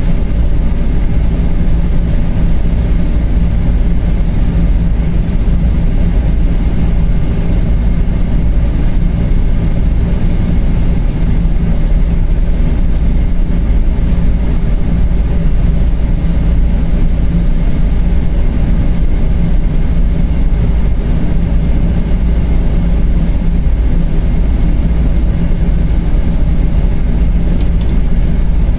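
Steady, loud, low cabin rumble of a Boeing 777-300 with its Rolls-Royce Trent engines running, heard from inside the passenger cabin, with a few steady low hums and no rise or fall.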